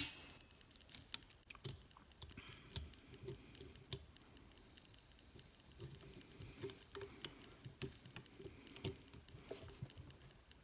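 Faint, scattered small metal clicks and taps as a snap ring is worked off the inner end of a CV axle shaft.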